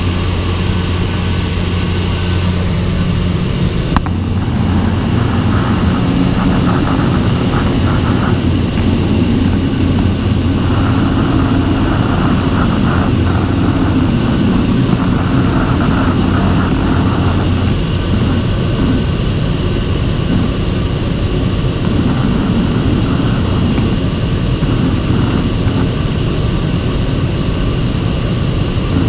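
Floatplane's engine and propeller droning steadily in cruising flight, heard from inside the cabin. The low hum shifts slightly about four seconds in.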